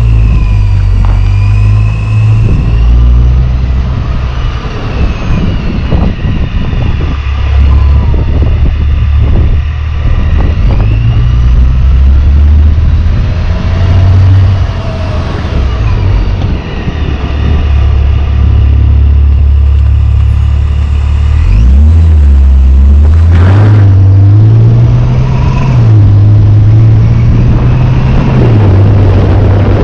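Ripp-supercharged 3.6-litre V6 of a Dodge Charger running while driven on a test drive, its engine note stepping up and down as it changes gear and revs. A little past two-thirds of the way, the revs drop and then climb again.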